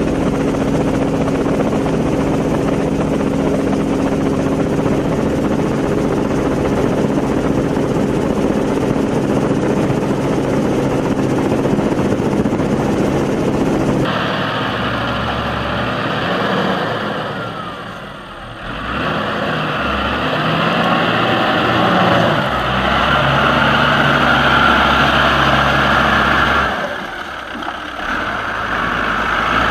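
Heavy machinery engines running, a steady pitched drone that changes abruptly about halfway through to a different engine sound with a high whine, with brief dips later on.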